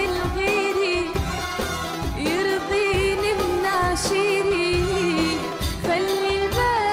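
A woman singing an Arabic song live with a band, holding ornamented, wavering notes over a steady percussion beat.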